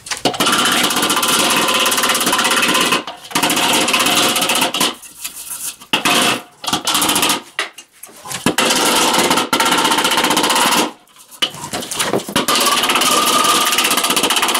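Rapid mallet strikes on the inside of a Weber kettle grill's steel bowl, the bowl ringing, in runs of a few seconds with short pauses: dents pushed in at the leg-bracket mounts being beaten out.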